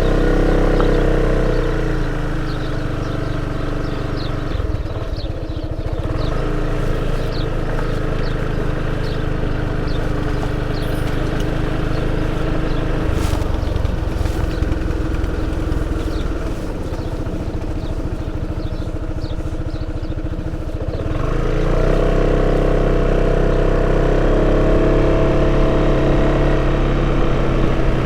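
Sym Cruisym 300 scooter's single-cylinder four-stroke engine and stock exhaust running while riding, over steady wind and road noise. The engine note is stronger under throttle about a second in, eases off for most of the middle, then picks up again about three-quarters of the way through.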